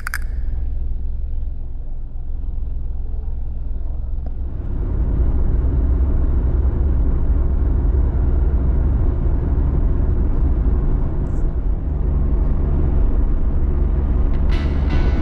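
Car running, heard from inside the cabin: a steady low rumble of engine and road noise that grows louder about four and a half seconds in as the car gets under way. A short sharp click right at the start.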